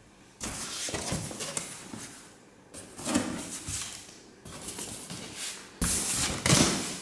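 Cardboard box flaps being pulled open and used boots shifted about inside the box: rustling and scraping in four bursts of a second or two each.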